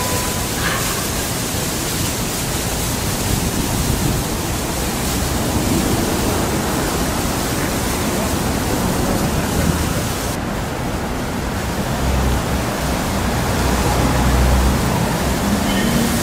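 Steady rushing air noise with no clear rhythm, a deep rumble swelling about twelve seconds in.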